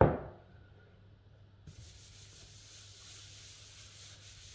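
A loud knock at the very start, then, about two seconds in, a steady hiss as dust is cleared off the surface of a finished oak burr piece.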